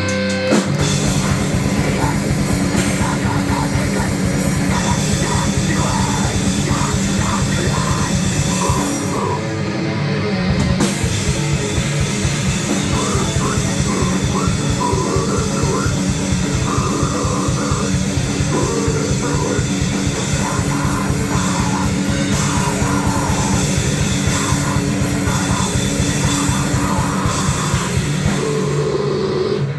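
Live grindcore/grindnoise band playing: distorted guitar and bass over very fast, dense drumming, with a brief let-up about nine seconds in.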